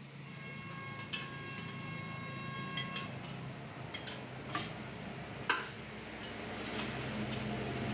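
Hand tools knocking and clinking on the steel frame of a tractor plough being straightened, a scatter of sharp metallic strikes with the loudest a little past halfway. For the first three seconds a struck piece of steel keeps ringing, until it is cut off by another knock. A low steady hum runs underneath.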